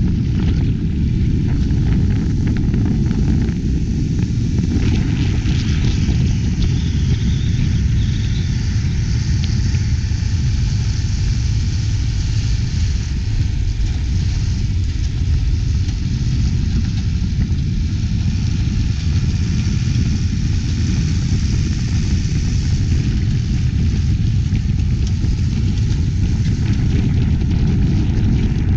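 Steady rumbling noise from a camera drone in flight: propeller wash and wind buffeting its microphone, with no distinct engine note.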